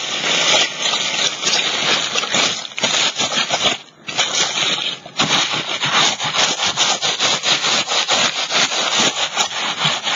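Tissue paper crinkling and rubbing as it is pressed and smoothed onto a canvas, in quick uneven crackly strokes, with a short pause about four seconds in.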